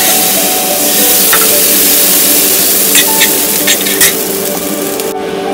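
Liquid sizzling hard in a hot stainless steel wok, with a metal spatula scraping and clinking against the pan a few times. The sizzle cuts off suddenly near the end.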